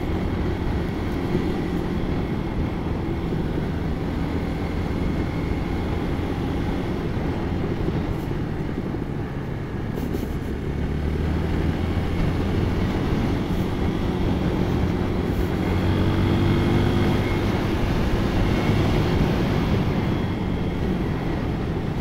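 Hero Xpulse 200 4V motorcycle's single-cylinder engine running steadily while riding, its pitch drifting up and down with the throttle, somewhat louder about two-thirds of the way through.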